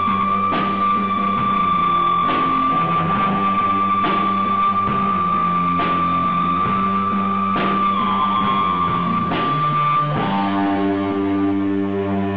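Live rock band playing an instrumental jam. A distorted electric guitar holds a long, high sustained tone over bass notes and sharp hits about every second and three quarters. About ten seconds in, the held tone drops away and the guitar moves to a new ringing chord.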